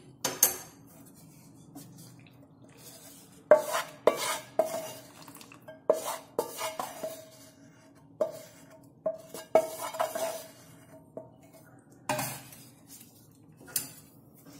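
Wooden spatula knocking and scraping against a nonstick pan and a steel kadai as sugar syrup is scraped out and stirred into roasted flour. The knocks come irregularly, a dozen or so, several leaving a short metallic ring.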